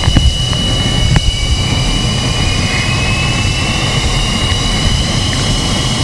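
Twin Klimov RD-33 turbofans of a two-seat MiG-29 running on the ground just after engine start: steady loud jet noise with a whine that rises slowly as the freshly started left engine spools up. Two sharp clicks sound, one at the start and one about a second in.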